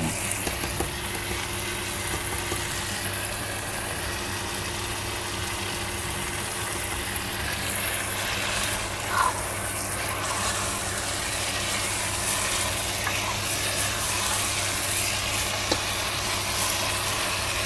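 Chicken pieces sizzling as they fry in spiced oil and tomato in a deep non-stick pot, stirred and turned with a spatula, over a steady low hum from the electric cooktop. There is one brief louder knock about halfway through.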